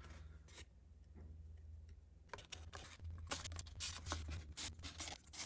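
Faint, quick, irregular scratches and light ticks of close hand work with a paintbrush and a paper plate holding a small 3D-printed plastic part. They start a little over two seconds in, over a low steady hum.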